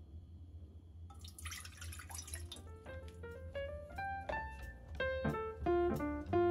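Water poured from a plastic measuring cup into an empty pot, a splashing pour starting about a second in and lasting about a second and a half. Then light piano music comes in, a run of notes climbing in pitch.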